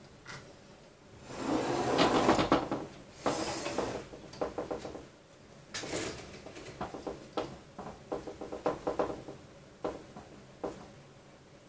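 Hands handling 3D printer parts and a toothed belt: a loud scraping rustle about a second in, followed by a run of short plastic-and-metal clicks and rattles.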